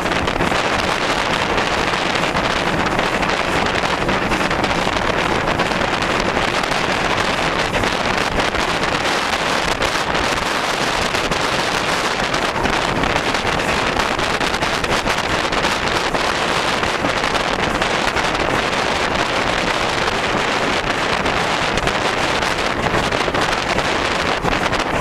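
Steady wind rush buffeting the microphone held out of a moving steam-hauled train, with the train's running noise mixed in underneath.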